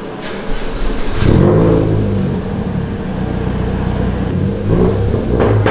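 A car engine comes in abruptly about a second in and runs with a wavering, revving pitch. A brief sharp knock sounds shortly before the end.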